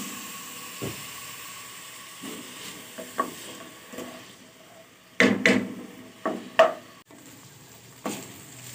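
Chopped onions frying in oil in a steel pan with a light sizzle, while a spatula stirs them and scrapes against the pan in several sharp strokes, the loudest a little past halfway.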